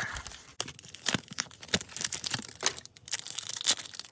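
Foil Pokémon trading-card booster pack wrapper crinkling and tearing open by hand, a run of short, sharp crackles.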